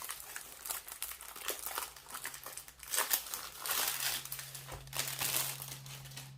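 Plastic packaging sleeve crinkling and rustling in irregular bursts as it is handled and the rolled diamond painting canvas is worked out of it.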